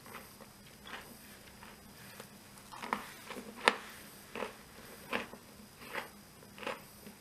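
Thin, crisp waffles being snapped and broken apart by hand: a run of short, dry cracking snaps, about one a second, the sharpest about halfway through.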